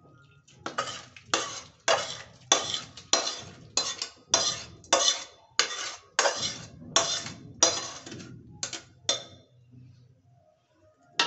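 A metal utensil scraping the inside of a steel bowl in a dozen or so regular strokes, about one every half second, pushing wet chicken marinade out into a steel kadai; the strokes stop about nine seconds in.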